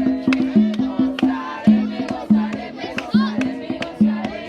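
Music with a steady beat: a repeating bass line and sharp percussion strikes a little under two a second.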